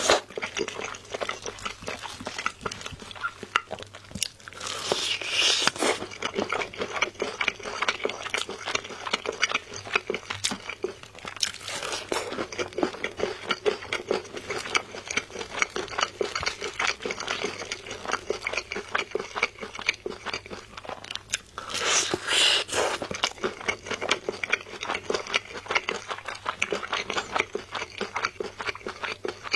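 Close-up crunching and chewing of sauce-coated Korean fried chicken, wet crackly bites going on steadily, with two louder crunchy stretches about five seconds in and again about twenty-two seconds in.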